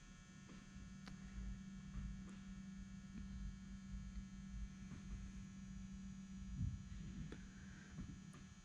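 Faint steady low hum that stops near the end, with a few light clicks and knocks.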